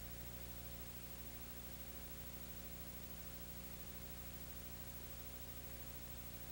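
Steady hiss with a low electrical hum underneath and nothing else: the bare noise floor of a silent film transfer.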